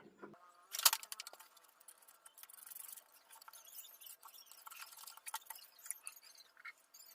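A run of small, irregular clicks, taps and scratchy ticks, with one sharp loud click about a second in.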